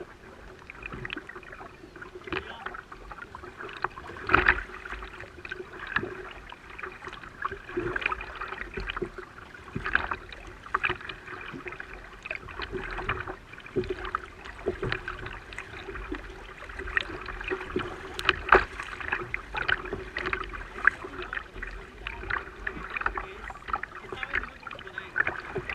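Kayak moving on the water: water sloshing against the hull with irregular knocks and clicks from the boat and paddle.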